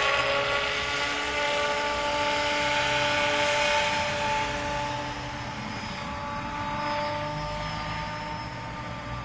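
Radio-controlled 500-size BO-105 scale helicopter with a four-blade rotor in flight: a steady whine with rotor noise, growing fainter as it flies away.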